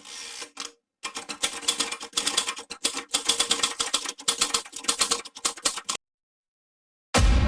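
Typewriter sound effect: rapid, dense key clicks for about six seconds that cut off abruptly. After a brief silence, a loud booming impact sound effect hits near the end and rings out.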